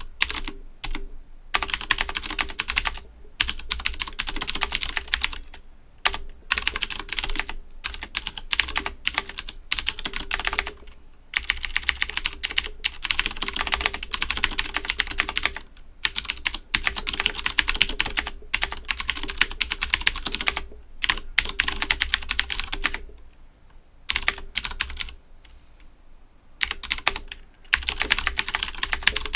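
Owltech OWL-KB109BM II mechanical keyboard with clicky Cherry MX Blue switches being typed on fast and continuously: a dense run of sharp keystroke clicks, broken by short pauses and a quieter, sparser stretch a little past two-thirds through.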